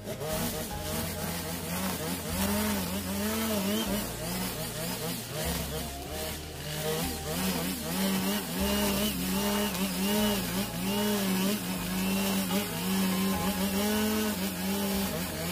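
A 45 cc two-stroke brush cutter with a nylon line head running at high revs, its pitch rising and falling again and again as the line cuts into thick grass. Background music with a stepping bass line plays under it.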